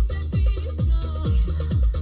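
Electronic dance music with a steady kick drum beat, a little over two beats a second, over a sustained bass line.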